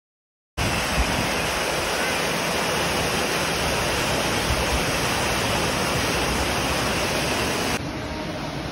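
Water from an artificial rock waterfall pouring into a pool: a steady, loud rush that starts suddenly after a moment of silence. Near the end it cuts to a quieter, steady hiss.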